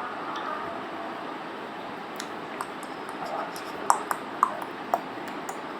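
Plastic toy building blocks clicking together as the wheel pieces are handled and fitted: a few faint clicks, then a quick series of sharp clicks from about four seconds in.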